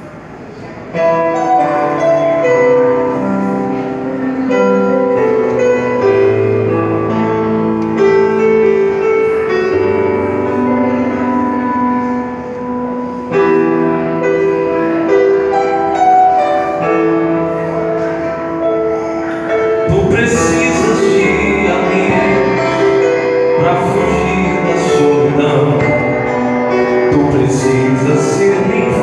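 A live band plays a song intro: held keyboard chords and melody begin about a second in, and the drums and the full band come in about two-thirds of the way through.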